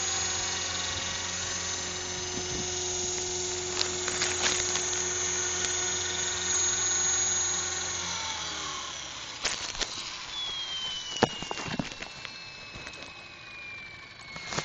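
Radio-controlled model helicopter running steadily on the ground, then spooling down: the hum drops in pitch about eight seconds in and a high motor whine slowly falls as the rotor winds down. A few sharp clicks and knocks sound along the way.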